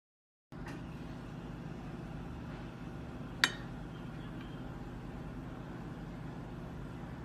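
A knife cutting a soft cake on a plate, with one sharp clink about three and a half seconds in as the metal blade strikes the plate, over a steady low room hum that starts after a moment of silence.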